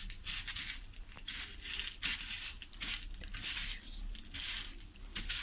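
Crushed Doritos tortilla chips crunching and crackling in irregular bursts, about two a second, as they are handled and pressed.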